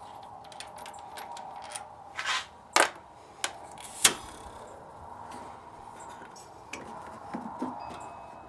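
Hand tools clicking and scraping on metal while the hoses are taken off an AC compressor, with two sharp metallic clanks in the middle and a brief hiss just before the first.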